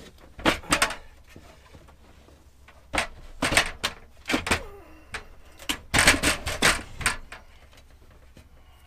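Folded aluminum attic ladder being shifted and settled into its wooden rough opening: a run of knocks, clunks and scraping, in bursts about half a second in, from about three to four and a half seconds, and again around six to seven seconds.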